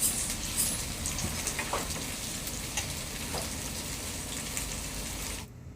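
Tandoori-marinated chicken sizzling as it fries in a pan, with scattered sharp pops of spitting fat. The sizzle cuts off suddenly near the end.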